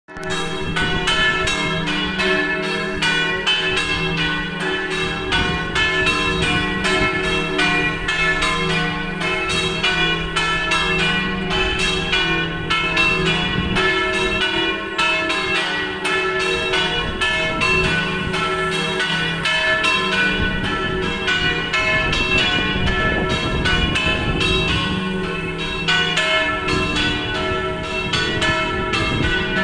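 Several church tower bells ringing together in rapid, continuous, overlapping strikes, a dense peal with no pause.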